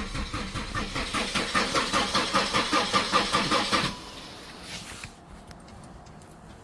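Holden Astra engine cranking over on its starter with an even, rapid chugging rhythm, never catching, until the starter stops about four seconds in. It is a no-start that the owner traced to no fuel coming from the injectors, with compression and spark both good.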